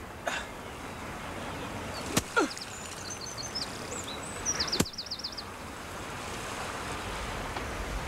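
Steady outdoor background noise with birds calling: high, short chirps from about two seconds in, ending in a quick run of repeated chirps around five seconds in. Two sharp clicks cut through, at about two and five seconds in.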